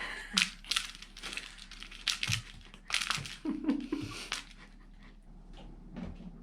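A cat toy rustling and crinkling in quick scrapes and taps as cats play with it, with a short pitched sound a little past the middle; the taps thin out over the last second or two.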